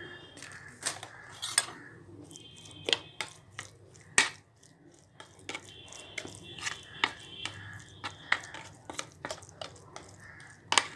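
A spoon clinking and scraping against a glass bowl in irregular sharp taps while stirring chopped raw mango mixed with spices and oil.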